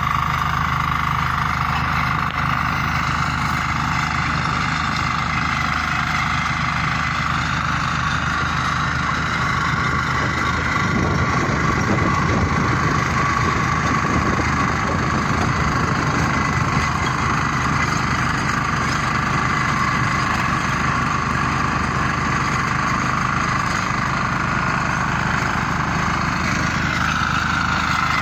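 Walk-behind rotary tiller engine running steadily under load as its tines churn the soil, with a rougher, noisier stretch in the middle.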